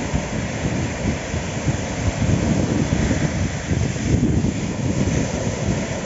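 Gusty wind buffeting the microphone over choppy surf washing up the beach.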